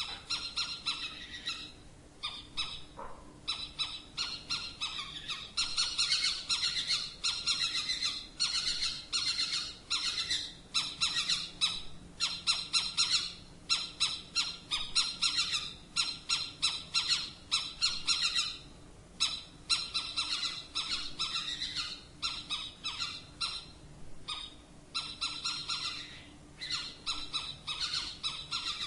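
An owl calling in long runs of short, sharp, squawking notes, several a second, with brief pauses between the runs.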